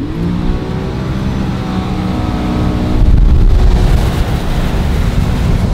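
A supercharged 350-horsepower boat engine revving up as the speedboat accelerates hard, its pitch rising at first and then holding. From about three seconds in, a loud rushing of wind and water swamps the engine note.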